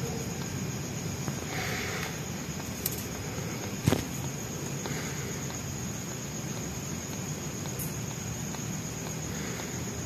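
Newborn kitten mewing faintly three times, over a steady background hiss, with a sharp click about four seconds in.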